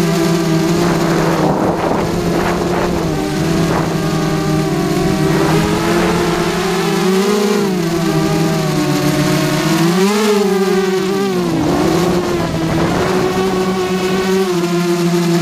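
QAV carbon-fibre racing quadcopter's electric motors and propellers whining in flight, heard from on board the craft. The pitch holds steady, then rises and falls with throttle changes about halfway through and again about two-thirds in.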